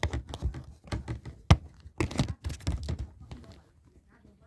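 Hard plastic RAM packaging being handled and pried open: a run of sharp clicks and knocks, the loudest about a second and a half in.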